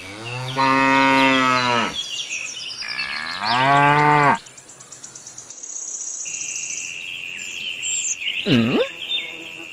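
A cow mooing twice: two long calls a couple of seconds apart.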